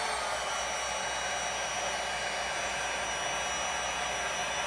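Heat gun blowing steadily, a constant rush of hot air with a faint high whine, warming the phone to soften the battery adhesive.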